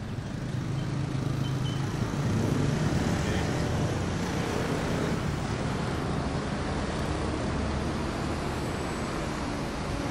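Road traffic: motor-vehicle engine and tyre noise, swelling about two seconds in as a vehicle passes close, then slowly easing.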